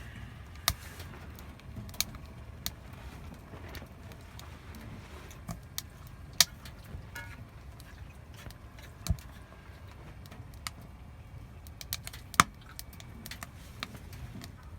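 Burning firewood crackling: sharp, irregular pops, a few every couple of seconds, over a low steady background.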